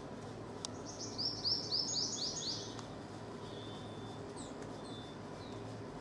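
Purple sunbird giving a quick high trill of about ten short down-slurred notes, followed a couple of seconds later by a few faint single chirps.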